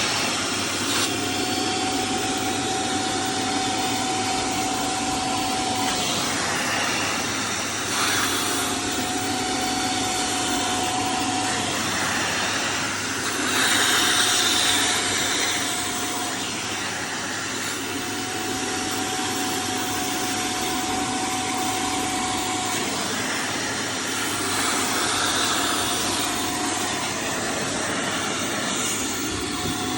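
Saugzauber WO7-2 washing vacuum cleaner running continuously, a steady tone in its sound dropping out and returning every few seconds, with a louder hissing swell about halfway through.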